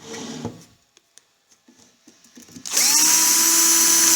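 Handheld electric screwdriver/drill: a few light clicks of handling, then the motor spins up with a quick rising whine about two-thirds of the way in and runs steadily, driving the screws of the carbon-brush holders on a washing machine motor.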